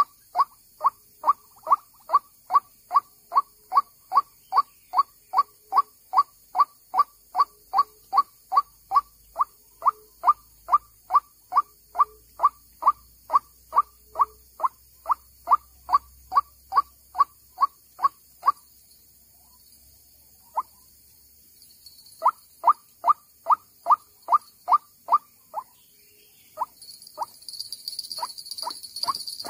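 White-breasted waterhen (dahuk) call, the rail's repeated short note sounding about twice a second in a long even run, used as a lure beside the traps. The calls break off after about 18 seconds and resume in a shorter run a few seconds later. A burst of noise comes near the end.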